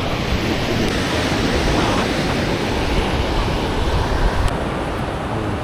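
Ocean surf washing onto a sandy beach in a steady rush that swells a little in the middle, with wind rumbling on the microphone.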